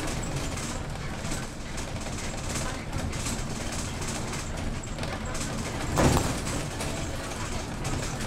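City bus running, heard from inside the cabin: steady engine and road noise, with one loud thump about six seconds in.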